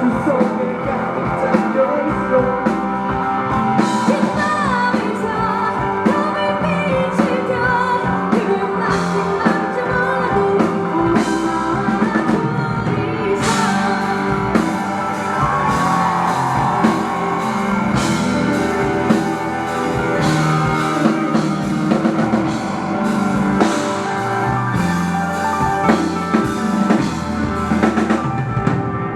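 Live rock band playing: a lead singer over drum kit, guitar, bass and keyboard, with steady drum and cymbal hits.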